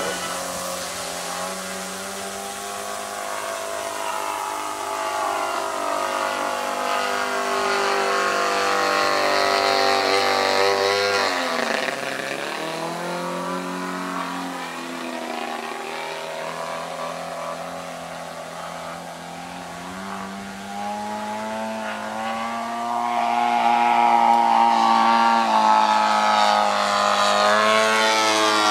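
The 120cc petrol engine of a Goldwing Corvus Racer aerobatic RC plane running in flight, its pitch rising and falling as it manoeuvres and passes. About twelve seconds in the pitch drops steeply and then climbs back, and it grows louder for the last few seconds.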